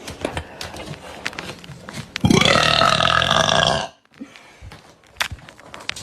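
A person letting out one long, loud burp about two seconds in, lasting under two seconds and stopping abruptly.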